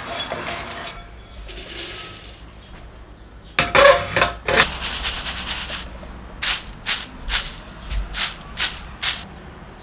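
Dry-roasted lettuce stem pieces rattling in a mesh strainer as it is shaken and tapped over a plate, sifting off the crumbs, in quick shakes about two a second near the end. A metallic clank with a short ring comes about three and a half seconds in.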